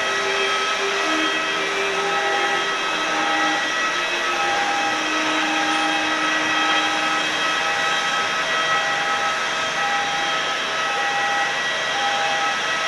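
Airport apron noise of jet aircraft: a steady turbine whine with a few high tones over a broad rush. From about two seconds in, a lower tone comes and goes roughly once a second.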